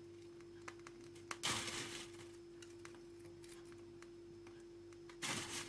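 Faint kitchen handling noises as a dish is plated: a couple of soft clicks and two short scraping rustles, one about a second and a half in and one near the end, over a steady low hum.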